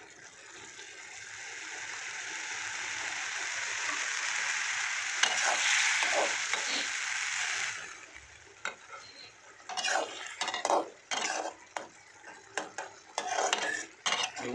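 Maggi noodles sizzling in a metal kadhai as the last of the water cooks off. The hiss grows louder and then cuts off about eight seconds in. A spatula then stirs and scrapes against the pan in short, irregular strokes.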